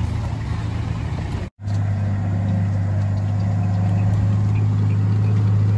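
Motor vehicle engines running on a steep dirt road climb. The audio cuts out briefly about a second and a half in, then a steady low engine drone carries on.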